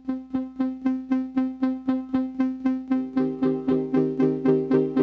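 Make Noise 0-Coast synthesizer patched through a Digitech VHM5 Vocalist harmonizer and Strega echo-reverb, pulsing one note about four times a second with quick decays. About three seconds in, the harmonizer adds harmony voices above and below the note.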